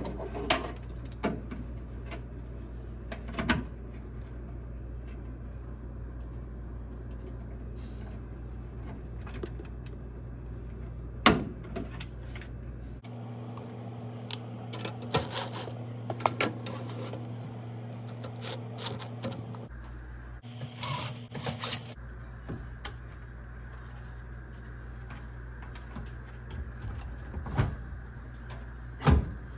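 Scattered clicks, taps and light clatter of small metal and plastic parts being handled, the microwave's door switch parts and screws being refitted, over a steady low hum. One knock about eleven seconds in is louder than the rest.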